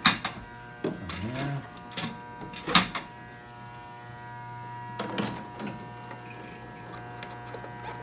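Hands knocking and rubbing on the plastic panels and fittings of an ice machine: a few sharp knocks, the loudest about three seconds in, over a steady hum.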